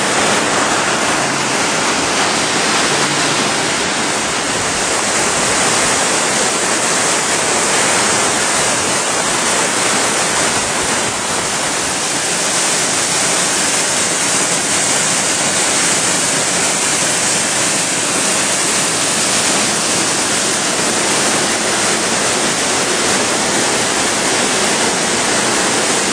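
Waterfall running with unusually high water, a loud, steady rush of falling water that does not let up.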